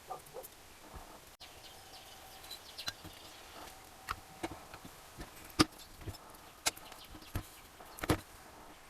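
Scattered clicks and knocks of tools and engine parts being handled during assembly, with three sharper knocks in the second half.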